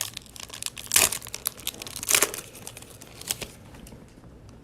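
A trading card pack's wrapper being torn open and crinkled, in several loud rustles about one, two and three seconds in, then quieter handling.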